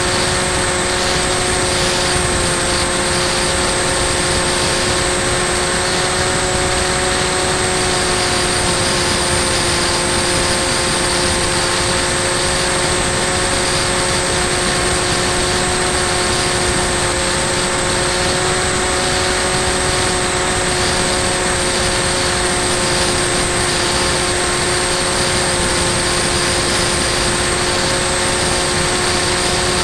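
Bixler 2 model plane's electric pusher motor and propeller running at a steady cruise throttle, heard from on board: an even multi-tone hum and high whine over a rush of air noise, unchanging throughout.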